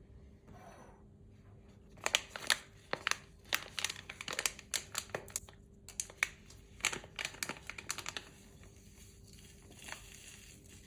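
A quick run of sharp crinkling and crackling handling sounds, lasting about six seconds from about two seconds in.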